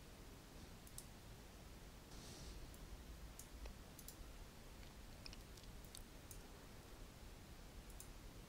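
Faint computer mouse clicks, about seven spread irregularly over several seconds, over near-silent room tone.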